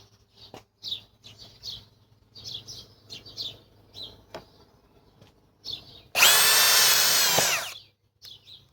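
Ridgid high-torque cordless hammer drill run in one short trigger pull of under two seconds about six seconds in, a steady motor whine that winds down as it stops. Birds chirp throughout, with a few light handling clicks.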